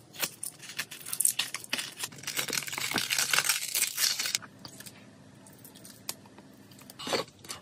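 A glued-on costume collar and rhinestone makeup being peeled off skin: small clicks and scratchy rustling, loudest in the middle, then quiet for a couple of seconds before a short scrape near the end.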